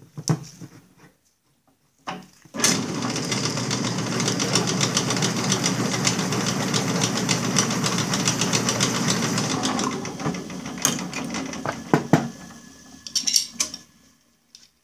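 Benchtop drill press starting up and running for about seven seconds as a single-flute countersink cuts a deeper chamfer into a bolt hole of a metal clutch brake disc, then switched off and spinning down. A few sharp metal clicks and knocks follow as the disc is handled.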